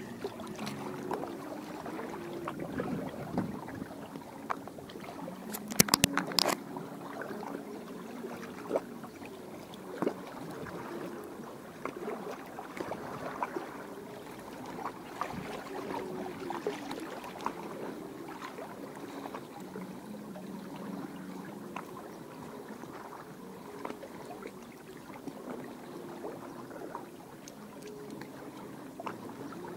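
Water lapping and sloshing, with a cluster of sharp clicks about six seconds in and scattered lighter taps.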